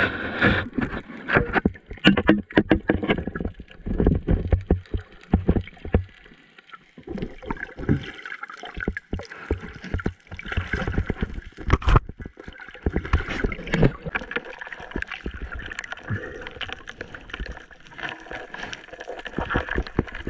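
Underwater sound through a GoPro's waterproof housing: muffled water movement and gurgling, broken by many irregular knocks and clicks, thickest in the first few seconds and again about midway.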